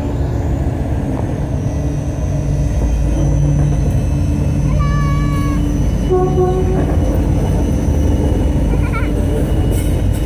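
Diesel-electric freight locomotive passing close with a heavy, steady engine rumble that grows louder as it draws level. Short high-pitched tones come about halfway through, and brief squeaks near the end.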